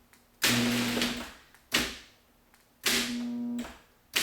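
Genie Intellicode screw-drive garage door opener motor starting and cutting out three times, each run a steady hum with noise over it, the door still held by its manual lock.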